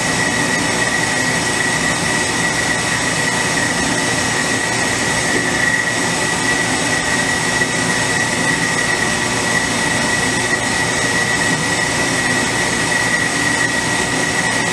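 Vacuum pump running under a vacuum-casting flask, drawing vacuum through the investment before the pour, with the melting furnace running behind it. The sound is a loud, even mechanical noise with a steady high whine through it.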